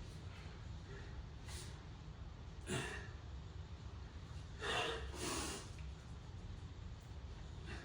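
A man breathing hard through a set of air squats: short, faint puffs of breath, with two louder, longer exhales about three and five seconds in.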